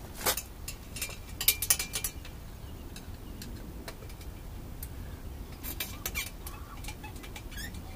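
Scattered metallic clicks and clinks of hand tools and parts being handled on a paramotor's propeller mount and belt drive as a loose propeller is being fixed. The clinks come in small clusters, a few in the first two seconds and another group around six seconds in.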